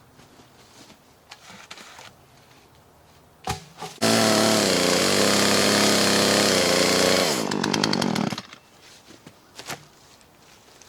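Gas chainsaw at full throttle cutting through a cedar log rail for about three seconds. It then drops off to idle briefly and stops.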